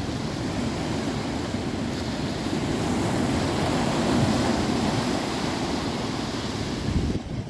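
Sea surf washing in, a steady rushing noise that swells a few seconds in, with wind buffeting the microphone; it drops off abruptly near the end.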